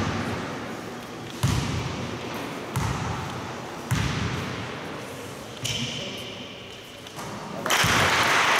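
A basketball bouncing on a wooden sports-hall floor, four separate bounces a second or so apart, each ringing out in the hall. Near the end a louder, steady background noise from the hall rises.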